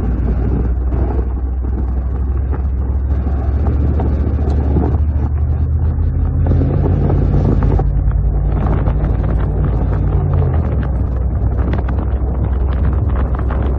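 Pickup truck engine droning as it tows a chain-pulled V-plow through snow, with heavy wind buffeting on the microphone mounted outside the truck. The engine note changes about ten seconds in.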